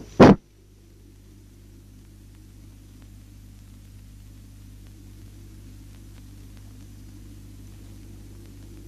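A short, loud burst a moment in, then a steady low electrical hum with faint hiss: the background noise of an old film soundtrack, with no music or effects.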